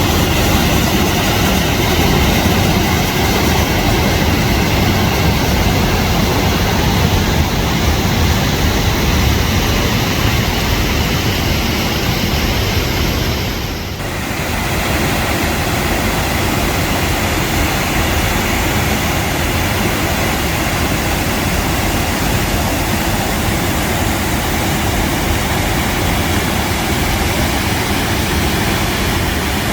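Loud, steady roar of a waterfall's rushing water. It dips briefly about halfway through, then carries on with a slightly different tone.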